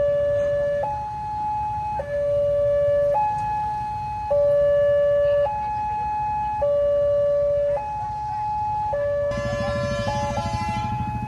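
Railway level-crossing warning siren sounding during a test, a steady two-tone alternation of a low and a high tone, each held about a second. Near the end a road vehicle's engine runs close by under it.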